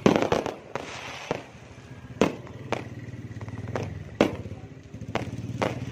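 Fireworks and firecrackers going off: a rapid cluster of bangs at the start, then single sharp bangs every half second to a second, over a steady low hum.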